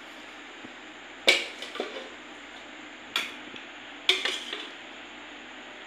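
Steel spoon clinking and scraping against steel bowls and plates as chicken curry is served. Three sharp clinks, the loudest about a second in, then one around three seconds and one around four seconds, each followed by a few lighter knocks.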